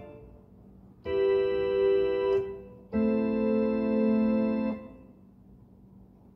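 Portable electronic keyboard on an organ voice playing two held chords, each about a second and a half long and cut off sharply, the second lower than the first, with a short pause before and between them.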